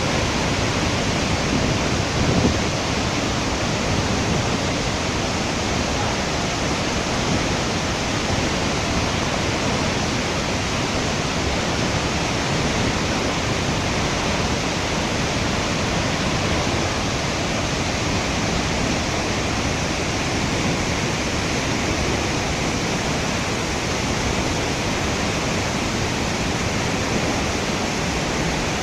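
Waterfall roaring steadily: a continuous, even rush of falling water.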